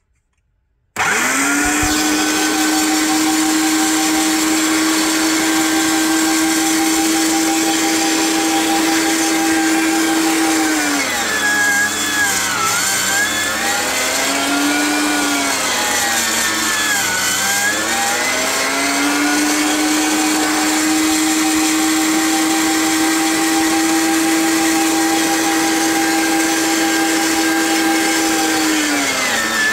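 Electric meat grinder switched on about a second in, its motor running with a steady hum. The pitch sags twice in the middle and again near the end as chunks of raw meat are fed through and load the motor, then comes back up.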